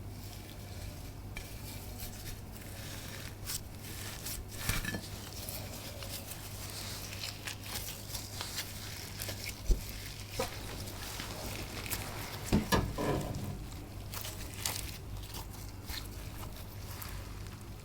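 Crafting materials being handled: scattered small clicks, taps and crinkling rustles, with a sharp click about ten seconds in and a short cluster of louder knocks and rustles a little later, over a steady low hum.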